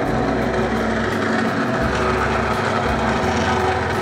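Electric noodle-making machine running steadily with a constant motor hum, its rollers sheeting dough. The machine is rather noisy.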